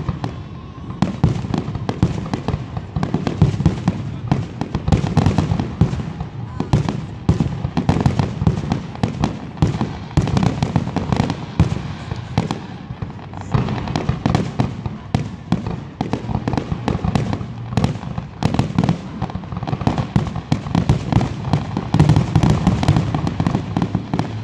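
Aerial fireworks display, shells bursting in rapid, overlapping succession, many bangs and crackles a second with no gap.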